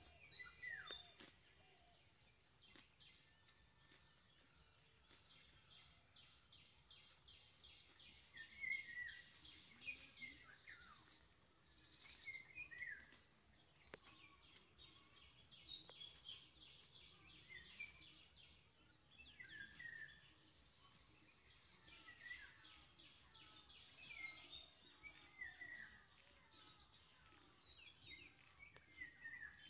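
Faint outdoor ambience: small birds chirping, with short falling calls every second or two and now and then a rapid pulsed trill, over a steady high-pitched tone.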